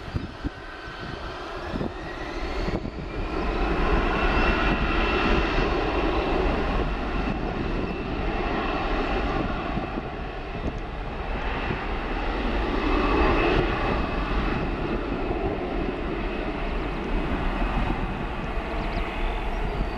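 Airbus A320-family jet airliner's engines spooling up about two seconds in, then running loud and steady with a high whine as the airliner rolls away down the runway for takeoff.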